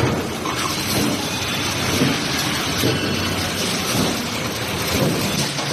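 Steady, loud machinery din of a hot-forging production line running, with a few short knocks.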